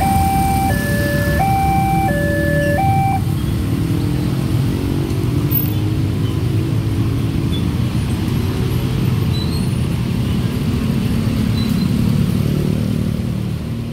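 Level-crossing warning alarm from the loudspeaker on the signal post, alternating between two tones, stopping about three seconds in as the barrier lifts. Under it and after it, motorcycle and minibus engines run and pull away across the wet road.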